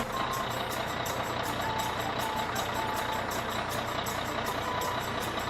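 Cartoon bulldozer engine sound effect running steadily, with a fast, even ticking over the drone.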